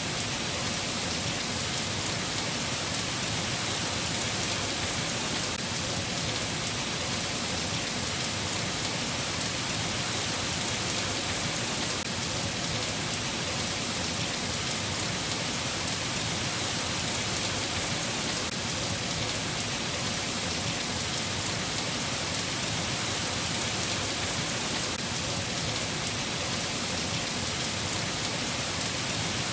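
Steady rain falling, an even hiss that does not change, with no thunder.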